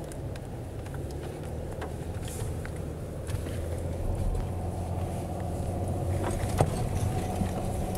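Car engine and tyre noise heard from inside the cabin while driving on a snow-covered road: a steady low drone with scattered small clicks and crackles, getting a little louder about three seconds in.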